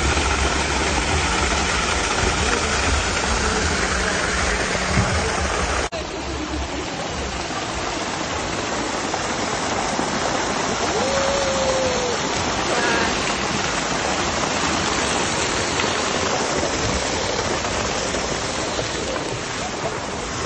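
Rainwater pouring off a building in a thick torrent and splashing onto paving, a loud steady rushing noise. It breaks for an instant about six seconds in and carries on slightly quieter.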